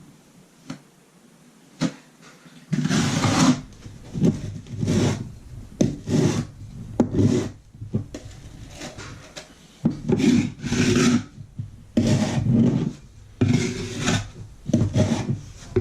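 Repeated rough scraping strokes of a hand tool spreading and smoothing patching filler over a plywood subfloor, starting about three seconds in and coming roughly once a second with short pauses.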